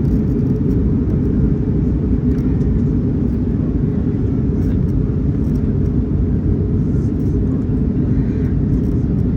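Steady low rumble of a QantasLink Airbus A319-100, engine and airflow noise running at an even level.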